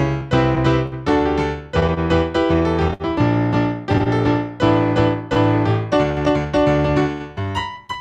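Piano playing chords about twice a second, each one struck and left to ring away before the next.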